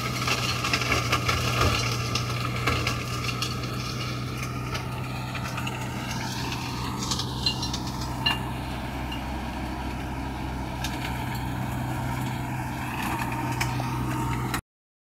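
Universal 640V tractor's diesel engine running steadily while driving a flail mower, with a constant low hum and a pitch that sags slightly midway. Scattered light clicks run through it, and it cuts off abruptly near the end.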